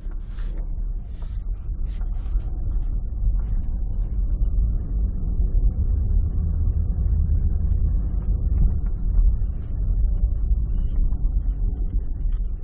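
Hyundai Accent in motion: a steady low rumble of road and engine noise, with a few faint short clicks over it.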